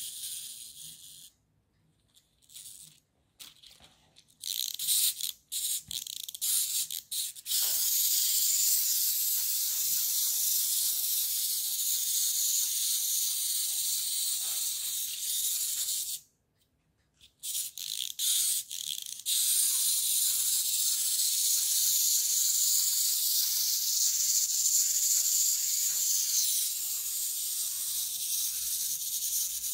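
Wind-up clockwork motor of a toy elephant kit whirring, a high hissing whir. It starts and stops in short spurts over the first several seconds and cuts out briefly around the middle, then runs steadily as the elephant walks.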